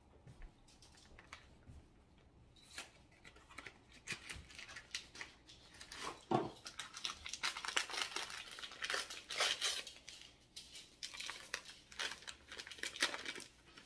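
Boxes of instant pistachio pudding mix being opened, their packaging torn and crinkled in a run of irregular rustles and tears. The rustling is sparse at first and gets busier from about three seconds in.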